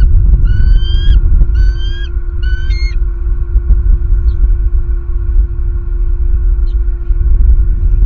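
Bald eagle giving three quick high-pitched calls in the first three seconds, each slightly rising, over heavy wind rumble on the nest-cam microphone and a steady hum.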